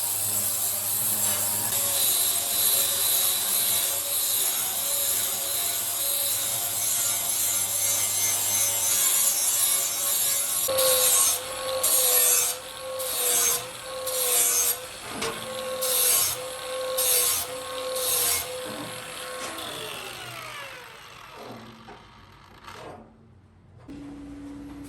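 Abrasive grinding on the blade of an old knife being restored, with a steady scraping hiss at first. About halfway in come repeated strokes, roughly one a second, over a steady hum, and near the end a falling whine as it winds down.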